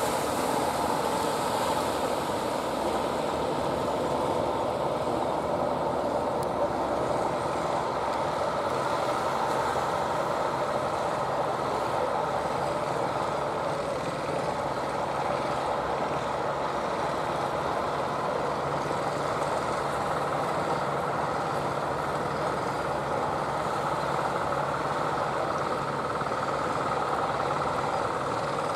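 Wooden fishing boat's engine running steadily under way, an even, unchanging drone.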